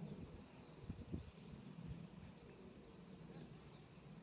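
Faint outdoor ambience with small birds chirping high up over the first two seconds, and a few dull low thumps about a second in.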